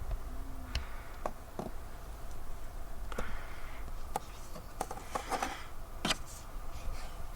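Handling noises: scattered light clicks and taps with short rustles, as of a memory kit's packaging being opened and handled.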